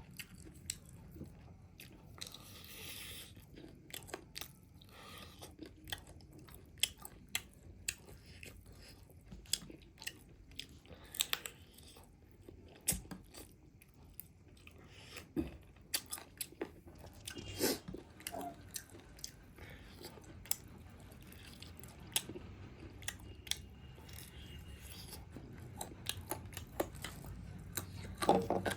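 Close-up chewing and biting into crispy fried chicken leg pieces, with irregular sharp crunches and mouth clicks throughout.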